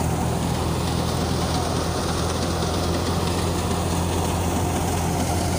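Paddy thresher machine running steadily, threshing rice, with a constant low hum and rushing noise.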